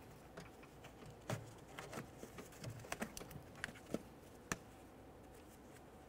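Faint, scattered clicks and light scrapes of a small pick and gloved fingers working a foam insulator pad off a door's inside handle assembly, dying away about four and a half seconds in.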